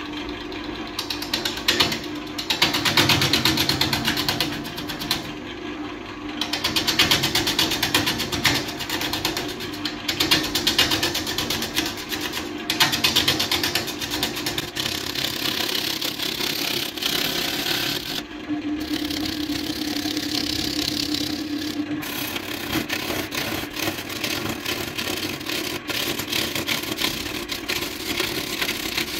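Wood lathe spinning a large log blank while a gouge roughs it down: a steady motor hum under a rapid, rough chattering and scraping as the tool bites into the wood. The cutting comes in louder stretches of a few seconds, then runs more evenly.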